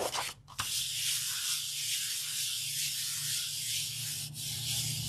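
Hands rubbing a sheet of paper down onto an inked gel printing plate to lift the print: a steady papery hiss of skin on paper, starting about half a second in.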